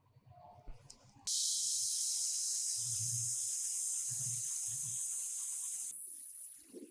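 Gravity-feed paint spray gun hissing steadily as it sprays a coat of paint, starting abruptly about a second in and thinning out near the end.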